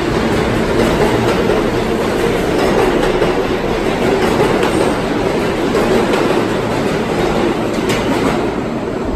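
R143 subway train pulling out of an underground station past the platform: a loud, steady rumble of wheels on rail that eases a little near the end as the last car goes by.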